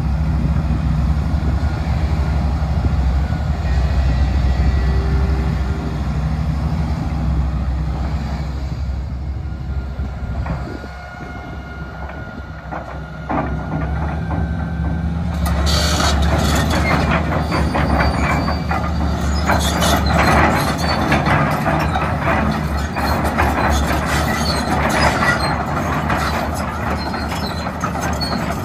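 John Deere 450D LC excavator's diesel engine running steadily, dipping briefly around ten seconds in. From about halfway on, its 36-inch triple-bar steel tracks clank and squeak continuously as the machine travels.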